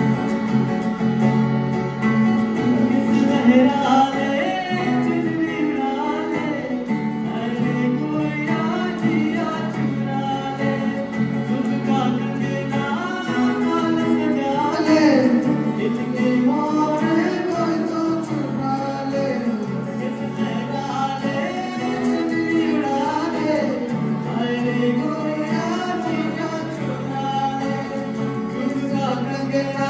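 Live amplified performance of a Nagpuri song mashup: male voices singing the melody into microphones over acoustic guitar accompaniment.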